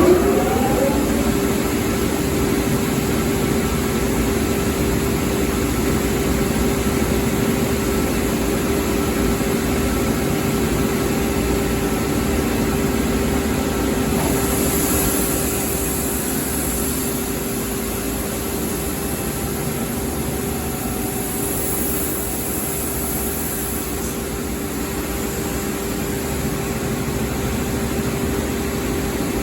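UniteK Winner wide belt sander running with a steady mechanical hum. Two spells of high hiss come in, about halfway through and again about three-quarters through.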